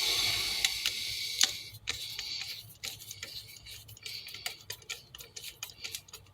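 Small clicks and scrapes of a wire being worked onto a wall switch's screw terminal, with a hissing scrape during the first two seconds and scattered ticks after.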